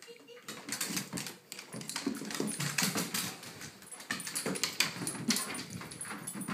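A basset hound's claws clicking and scrabbling on a hardwood floor as it runs and turns, many quick clicks in a row, with brief whining sounds from the dog mixed in.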